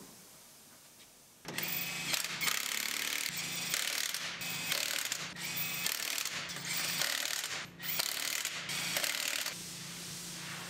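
A power wrench running the lug nuts onto a truck's wheels: a loud mechanical rattle in a series of bursts with short breaks, starting about a second and a half in and stopping near the end.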